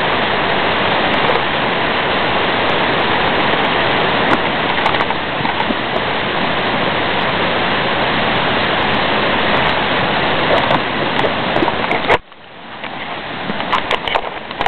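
Steady rushing of running water, like a nearby stream or waterfall. It cuts off suddenly about twelve seconds in, leaving a quieter hiss with a few scattered clicks.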